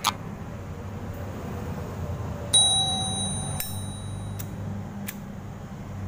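A Zippo lighter's lid is flipped open with a sudden clear metallic ring that lasts nearly two seconds, then a few sharp single clicks as the lighter is worked to light it.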